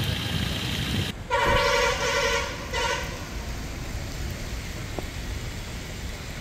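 A car horn sounds about a second in, one long honk followed by a shorter one, over steady background noise.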